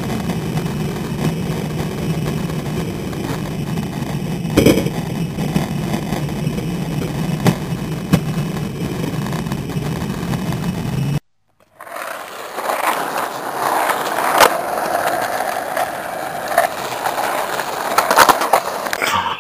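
Skateboard wheels rolling over concrete, a steady rumble broken by a few sharp clacks. After a brief cutout about eleven seconds in, the rolling comes back higher and hissier, with more clacks.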